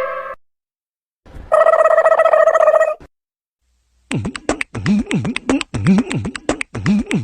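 Comedy meme sound-effect clips played back to back. A steady held tone lasts about a second and a half, then after a short gap comes a fast run of clicks and quickly swooping low, voice-like pitches in the manner of beatboxing.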